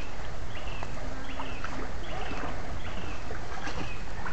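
A steady low rumble of water and wading noise in a shallow stream, with a short high chirp that repeats about every two-thirds of a second.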